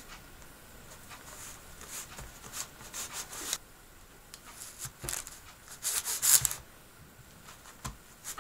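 Kitchen knife cutting through sheets of puff pastry, the blade scraping on the paper underneath in a few faint strokes with pauses between.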